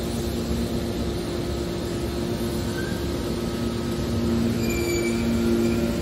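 Horizontal hydraulic scrap-metal baler (HC81T-630) running, its hydraulic power unit giving a steady hum over machine noise. Brief high squeals join in about four and a half seconds in.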